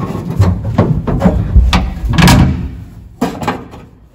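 A string of knocks and thumps, about half a dozen, on the sheet metal of a stripped 1963 Ford Falcon body as a person climbs inside and settles in. The knocks are loudest in the middle and die down near the end.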